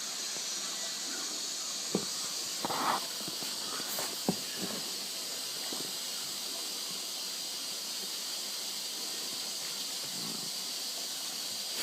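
Steady hiss from a running Bendix 7128 washing machine mid-cycle, with a few faint clicks and a brief rustle in the first half.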